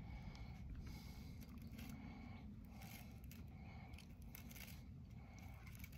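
Fishing line being pulled off a baitcasting reel by hand in arm-length pulls, each pull a short swishing zip, several of them about a second apart.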